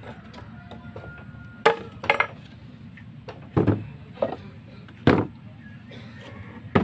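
A machete chopping through a green anahaw palm frond stalk, cutting it into short pieces. There are about seven sharp chops at uneven intervals, some about a second apart and some in quick pairs.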